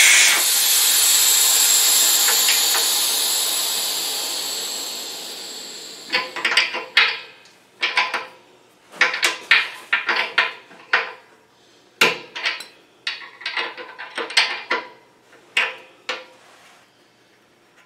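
Compressed air hissing out of a Sanborn 20-gallon air compressor's tank drain valve as it is opened; the hiss starts suddenly and fades away over about six seconds as the tank empties. Then comes a run of irregular light metallic clicks and taps as the drain valve is worked by hand.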